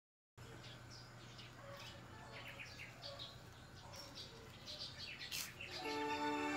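Small birds chirping in quick, repeated short calls over a faint outdoor background. Background music comes in near the end.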